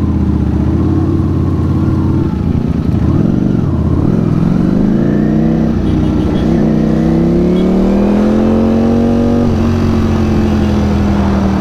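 Ducati Panigale V4 S's V4 engine pulling away from a near standstill. It runs low and steady for a couple of seconds, then climbs in pitch as the bike accelerates, drops back about nine and a half seconds in, and holds steady after that.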